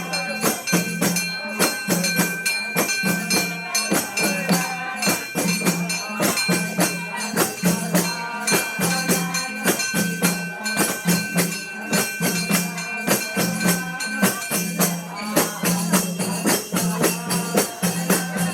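Music with rapid percussion strikes over a low drum beat pulsing about twice a second, and a moving melody. A held high note drops out about fifteen seconds in.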